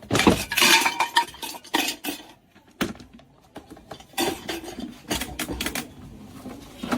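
Hard metal objects clinking and clattering in quick runs of knocks, with a short lull in the middle.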